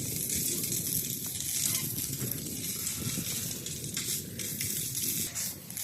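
Maandazi dough deep-frying in hot oil: a steady sizzle with a few sharp crackles.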